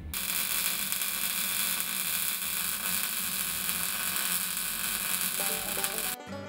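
Wire-feed welder arc-welding a steel ledger angle to a steel beam: a steady hiss that starts suddenly and stops about six seconds in, as music comes in.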